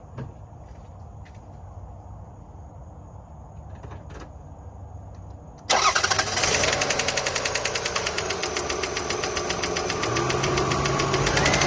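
2002 Toyota Highlander's 3.0-litre V6 running with a fast, even ticking. It is faint at first and gets suddenly much louder a little past halfway. The owner wonders whether the tick means the valve lash needs adjusting or is an exhaust leak.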